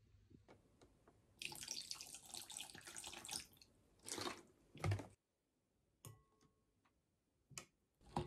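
Water running from a tap into a sink for about two seconds, then two short splashes. After a sudden cutoff, a few light clicks follow.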